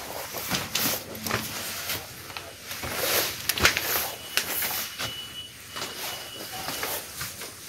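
Footsteps and scattered light knocks on a wooden plank floor.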